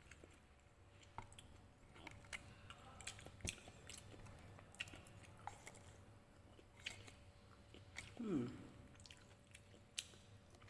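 Quiet eating sounds: scattered faint clicks of chopsticks in a clay pot and soft chewing. About eight seconds in there is a short low murmur falling in pitch.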